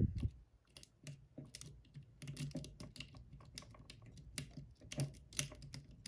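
Steel worm rake scrubbed in and out of a cheap four-pin cable lock's keyway against a thin Z-style tension wrench. It makes a fast, irregular run of small metallic clicks and scrapes as it rakes over the pins.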